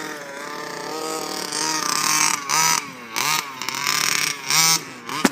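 Engine of a rebuilt baja off-road vehicle being driven, its pitch rising and falling several times as the throttle is worked, with short bursts of hissing noise.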